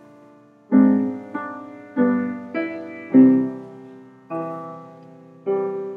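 Piano playing a slow hymn introduction: about seven notes and chords struck one after another, roughly one every half second to second, each ringing out and fading before the next. It begins after a brief pause.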